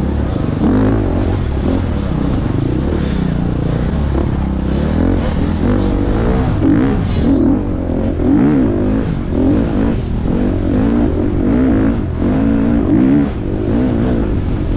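Single-cylinder four-stroke engine of a Husqvarna FX 350 dirt bike being ridden hard, revving up and falling back over and over as the throttle opens and closes, with chassis rattles over it.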